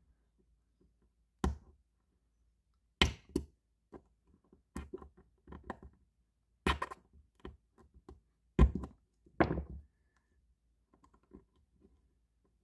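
A small metal pick and the cut-open pieces of a Bosch K-Jetronic fuel injector knocking and clicking against a cloth-covered bench, in sharp separate knocks every second or two, as the injector's filter is worked loose and pushed out.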